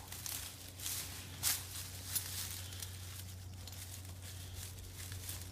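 Quiet background with a low steady hum, broken by faint rustles and a couple of light clicks.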